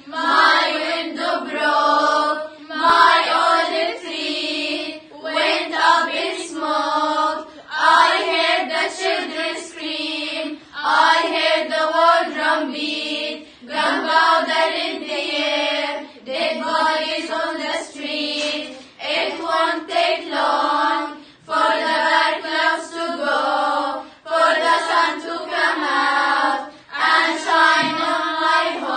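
A group of teenage girls singing together, in phrases of a second or two with short breaks between them.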